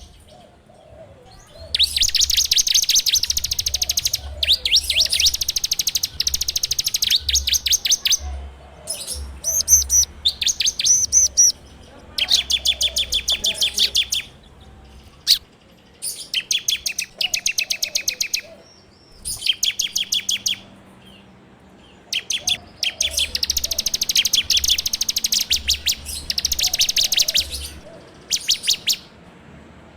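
Bar-winged prinia (ciblek) singing in the rapid rattling 'ngebren' style: bursts of very fast, high chattering notes, each phrase lasting one to three seconds, repeated with short pauses.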